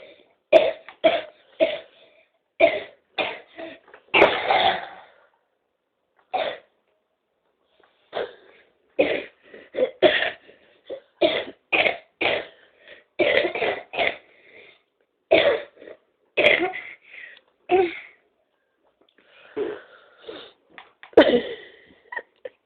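A boy coughing in short, repeated coughs strung together into a rhythm, in runs with short pauses between them.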